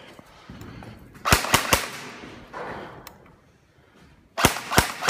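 Airsoft rifles firing: three sharp shots in quick succession about a second in, then another rapid string of shots near the end, each echoing in a large concrete room.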